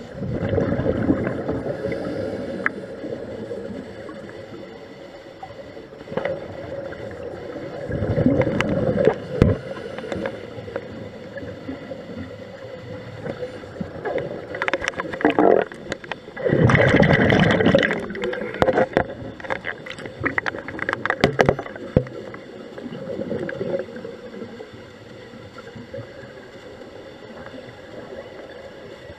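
Scuba diver's exhaled bubbles from a regulator, heard underwater as several bursts of gurgling a few seconds apart, with scattered clicks over a steady hum.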